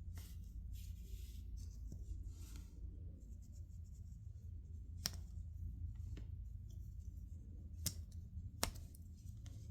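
Blades of a small stockman pocket knife being worked open and shut, with soft handling rustle and three sharp snaps of the blades against the backspring in the second half, over a low steady hum.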